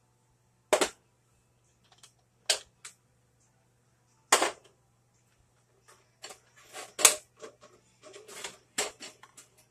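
Plastic parts of an electric egg cooker, its egg trays and clear dome lid, knocking and clattering as they are handled, lifted off and set down. There are about five sharp knocks with lighter clicks between them.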